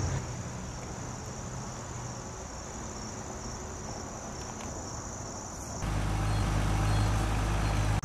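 Steady high-pitched buzz of insects in the background, such as crickets. About six seconds in, it cuts off and a louder steady low rumble takes over.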